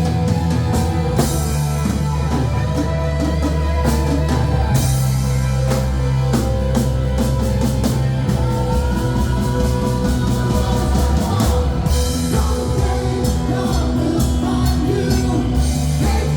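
Live band playing a retro pop-rock song: drum kit, bass and guitar, with a singing voice.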